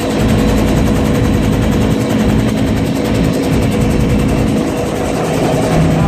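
Helicopter in flight heard from inside its open-doored cabin: a loud, steady turbine and rotor drone with a fast, even rotor beat, mixed with rushing air.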